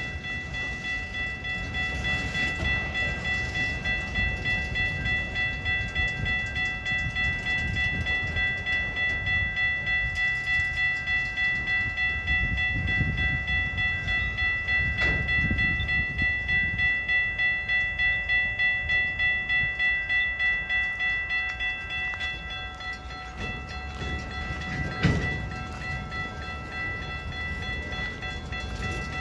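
Freight train of autorack cars rolling slowly past with a low rumble and a couple of sharp clunks, while a grade-crossing bell rings in a fast, even rhythm. The bell's ringing drops away about three-quarters of the way through.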